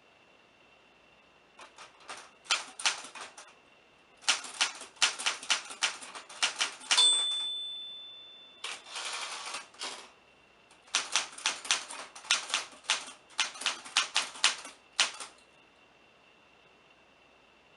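Typewriter keys striking in quick runs of clicks. About seven seconds in, a bell rings once and fades. A rough sliding rasp follows, the carriage being returned for the next line. Then typing resumes and stops.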